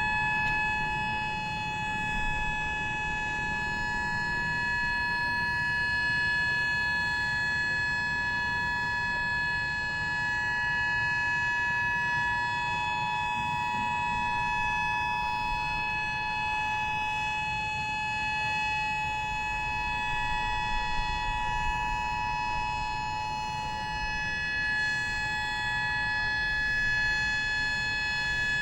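Civil defence siren sounding a steady tone, two close pitches held together with no rise or fall: the Heroes' Day siren that marks the moment of silence.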